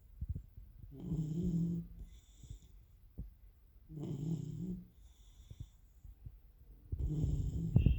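Labrador dog snoring in its sleep: three slow snores about three seconds apart, each a low snore followed by a shorter, quieter breath.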